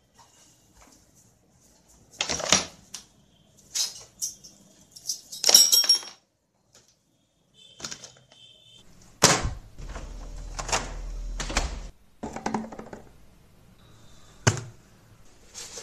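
A string of separate knocks and clatters, as of small objects and books being set down on a wooden desk, with a low rumble under the loudest knocks in the middle and a brief high tone just before them.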